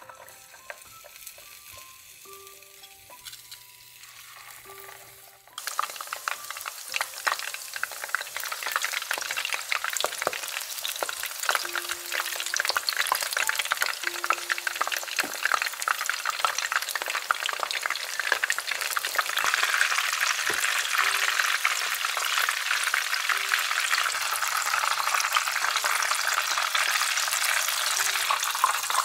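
Egg-coated zucchini and minced-meat rolls frying in hot oil in a pan, a dense sizzle and crackle. It starts faint and grows much louder suddenly about five seconds in, then keeps up steadily.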